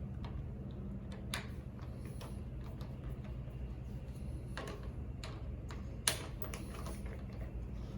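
Scattered light clicks and taps of a doorknob and its latch being handled and worked, the sharpest click about six seconds in, over a steady low hum.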